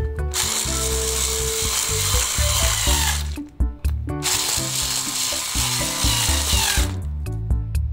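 Cordless electric screwdriver running in two runs of about three seconds each, turning screws in a plastic toy casing, over background music.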